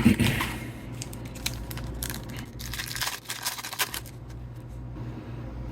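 Trading cards and their plastic wrapping being handled: crinkling and rustling with scattered small clicks, thickest about two to four seconds in.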